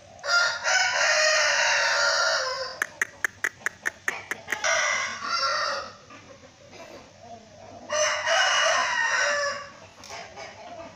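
A rooster crowing: one long crow at the start and another near the end. In between come a quick run of about eight sharp clicks and a shorter call.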